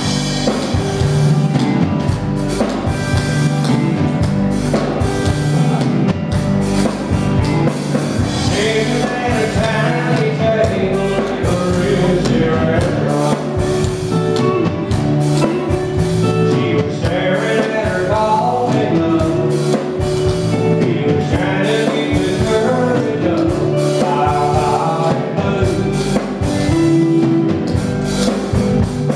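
Live country band playing, with electric guitar, bass guitar and drums.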